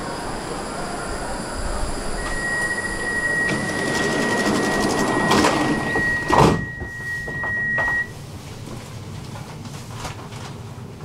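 Stockholm metro train standing at the platform with its doors open: a steady high tone sounds for about six seconds, the sliding doors shut with a loud knock about six and a half seconds in, and the tone cuts off shortly after, leaving the train's lower hum.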